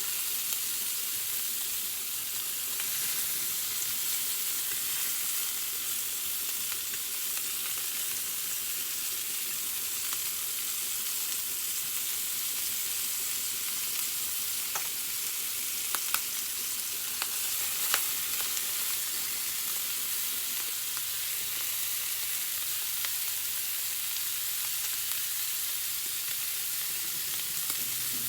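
Meat sizzling steadily as it fries in a hot pan, with a few sharp ticks and pops a little past the middle.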